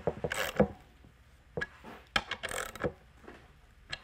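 Socket ratchet turning a hex cap screw to drive a brass threaded insert into wood: several quick clicks and scrapes in the first second, then a few scattered clicks.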